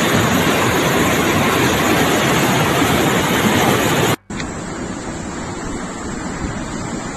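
Muddy floodwater rushing fast in a swollen channel, a loud, steady rushing noise. It cuts out briefly about four seconds in and comes back as a quieter, steady rush of wind and water.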